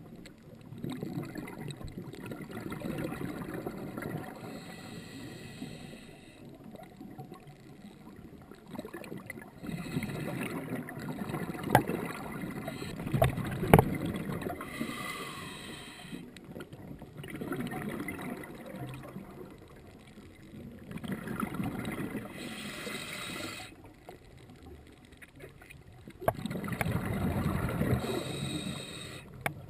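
Scuba diver breathing underwater through a regulator. Exhaled bubbles gurgle in swells every few seconds, with short hisses of inhalation in between. A few sharp knocks come about halfway through and near the end.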